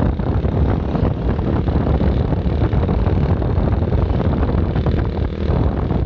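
Vehicle and road noise with wind buffeting the microphone, a steady dense rumble with no horn sounding.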